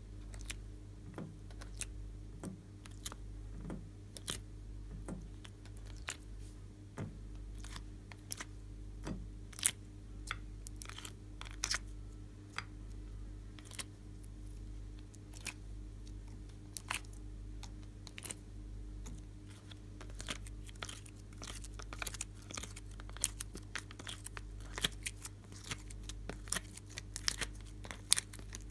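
Sticky clicks and pops of slime cubes being pressed and pulled out of a plastic ice-cube tray and dropped into a glass dish of slime, coming irregularly a few times a second and more thickly near the end, over a steady low hum.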